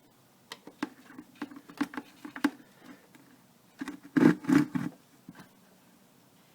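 A screwdriver clicking and knocking against the drain and fill screws of an outboard motor's gear case as they are tightened. A scattered run of sharp clicks is followed by a louder clatter about four seconds in.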